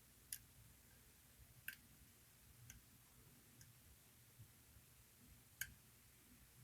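Sparse, irregular metallic ticks from a dimple pick working the pins of a small Goal D9 dimple lock during picking, about five over the stretch, the sharpest shortly after the start and near the end.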